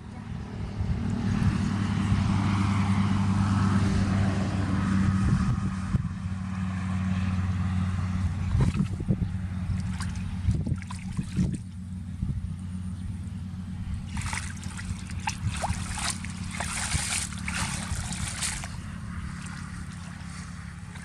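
An engine running steadily with a low, even hum, louder for the first few seconds. Water splashes and trickles over it, with a cluster of sharp splashes a little past the middle.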